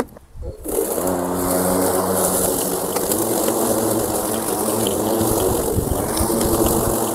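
Wild Badger Power 40V brushless cordless lawn mower starting up about a second in, then running steadily with its blade cutting grass in mulching mode.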